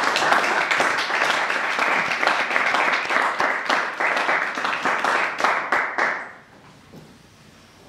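Audience applauding, a dense patter of many hands clapping that dies away quickly about six seconds in.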